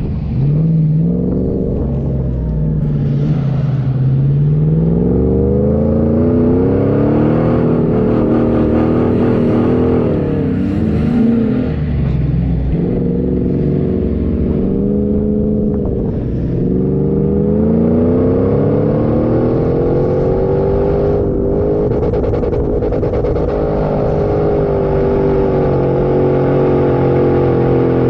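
4x4 engine under load, revving up and dropping back again and again as the vehicle drives off-road, then running at a fairly steady pitch over the last several seconds.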